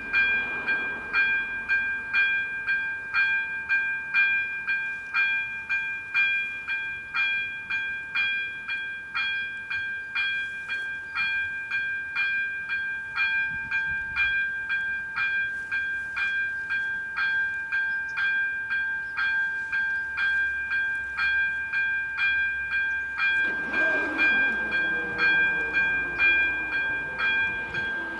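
A level-crossing electronic warning bell rings steadily at about two strokes a second, signalling that a train is approaching. About 23 seconds in, the motors of the barrier drives start whirring in under it as the booms lower across the road.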